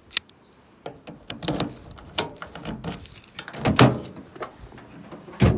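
A string of knocks, clunks and rattles from gear being handled, with a sharp knock near the start, a loud cluster of thumps near the middle and another loud thump near the end.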